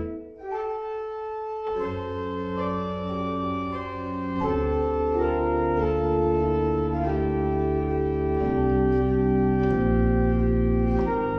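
Church pipe organ playing a slow chorale prelude in held chords over deep bass notes. The sound falls away just after the start, and a new chord enters under two seconds in.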